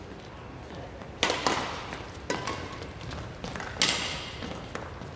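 Badminton rally: rackets smacking a shuttlecock back and forth, four or so sharp hits about a second apart, each ringing briefly through a large hall.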